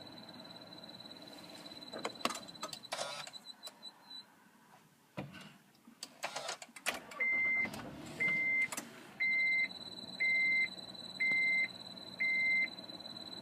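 Handling clunks and rustles, then a Honda Odyssey's warning chime beeping six times, evenly, about once a second. Under it runs a steady high-pitched whine that breaks off about four seconds in and returns about nine seconds in.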